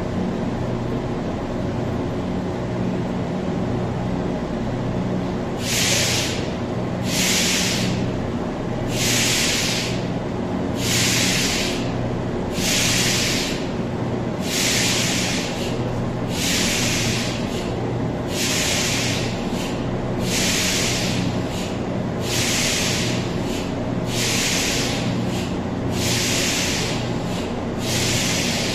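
Concarril NM-79 metro train standing at the platform: a steady low hum from its equipment, and from about six seconds in, short hisses of compressed air repeating about every two seconds, a few of them doubled.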